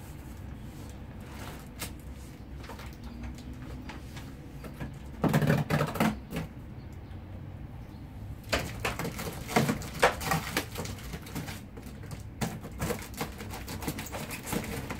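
Household items and boxes being handled and rummaged through: scattered clicks, knocks and rustles, with a louder burst of handling noise about five seconds in lasting about a second, and a busier run of clicks and knocks in the second half.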